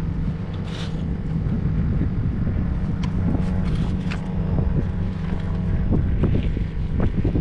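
Steady low drone of a boat motor running, with wind buffeting the microphone.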